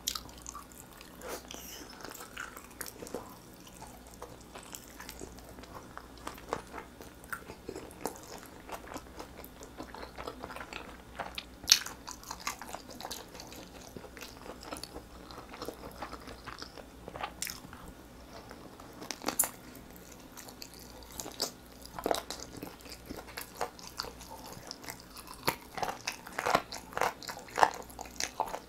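Close-miked chewing and biting of sauce-glazed grilled chicken drumstick meat: wet mouth sounds with scattered sharp clicks, coming thick and fast near the end.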